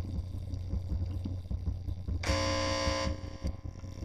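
Guitar amplifier with a steady mains hum. About two seconds in, a single strummed guitar chord sounds through it and is cut off after under a second.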